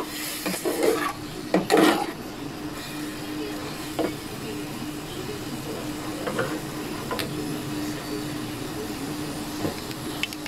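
A metal ladle scraping and knocking against a pot as chunks of pork are stirred. The clatter is loudest in the first two seconds, then comes as occasional single taps over a steady low hum.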